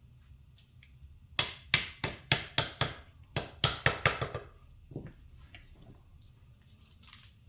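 Hammer blows driving a new bushing into an ATV A-arm: about ten sharp strikes at roughly three a second, then a couple of lighter taps.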